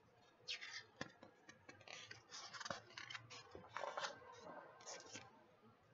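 Faint rustling and scraping of a paper picture book being handled and its page turned, in several soft short bursts.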